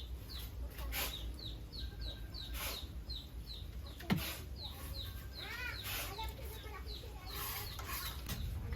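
A regular series of short, high falling chirps, about three a second, from a small animal. About halfway there is a brief separate call, and a single knock about four seconds in.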